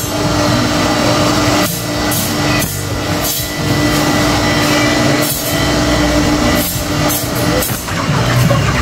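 Motor-driven grinding wheel sharpening a long knife blade. A steady motor hum runs under a harsh grinding hiss, with short breaks every second or two as the blade comes off the wheel and goes back on.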